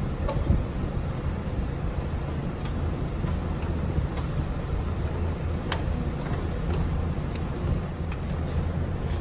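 Steady low hum of background noise, with a few light clicks and taps from hands working a clutch line through the engine bay.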